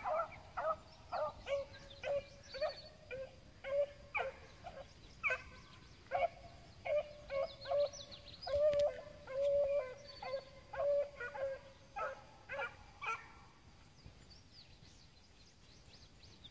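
A pack of beagles baying as they run a rabbit's track, with overlapping calls at about two a second that die away near the end.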